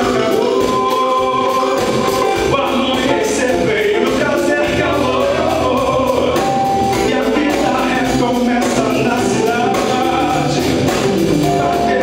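A live band playing, with a male lead vocal over guitars, keyboard and a drum kit keeping a steady beat.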